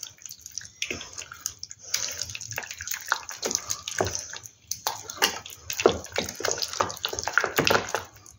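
Wooden spoon stirring a thick, lumpy homemade glue paste in a stainless steel pot: irregular wet squelching and slopping, the paste not yet blended with the water just added.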